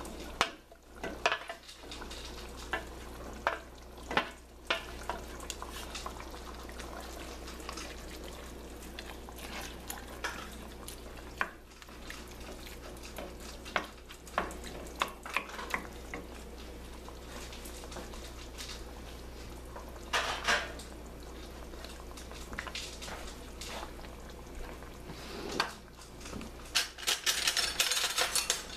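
A wooden spoon scraping and knocking against a metal tray and a stainless steel pot as shredded chicken is scraped in and stirred into simmering sauce, in irregular clacks and scrapes. A steady low hum runs underneath, and near the end the sauce sizzles and hisses.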